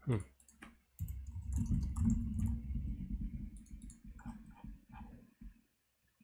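Computer keyboard typing and mouse clicks in quick runs, after a brief falling vocal sound at the start. The keys stop about a second before the end.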